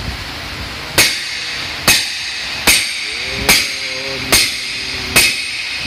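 Hammer blows on a steel driver mandrel, seating a cylinder liner into a Toyota 22R four-cylinder engine block: six sharp metal-on-metal strikes a little under a second apart. The liner is a press fit, which cracks the liner if it is made too tight.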